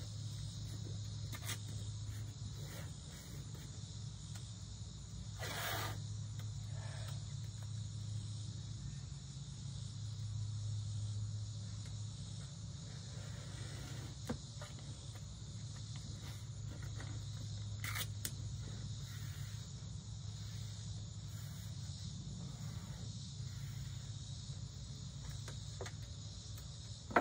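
Steady high-pitched insect chorus over a low steady hum, with a few faint taps and rustles, among them a short rustle about six seconds in and a sharp click near eighteen seconds.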